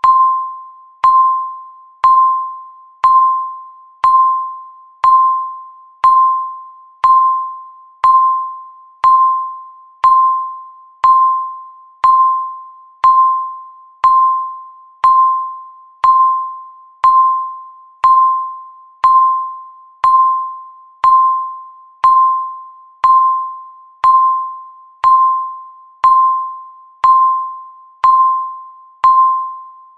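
Countdown timer's tick sound: a single clear ding near 1 kHz struck once every second, each one starting sharply and fading away before the next.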